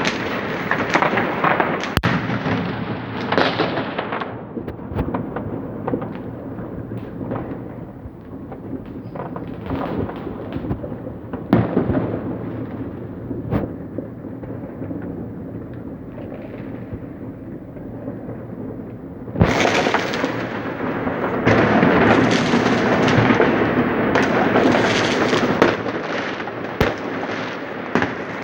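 Fireworks bursting and crackling in a continuous barrage, with single sharp bangs standing out. About two-thirds of the way through, the firing suddenly turns louder and denser.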